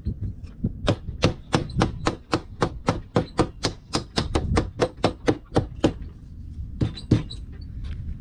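Rubber mallet tapping an aluminum window frame onto a double-pane glass unit's rubber gasket: a steady run of quick knocks, about four a second, then a short pause and a few more strikes near the end.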